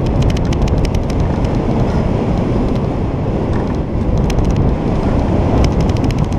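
Heavy wind buffeting on a hang glider's onboard camera in gliding flight: a steady low rushing rumble with frequent irregular sharp clicks.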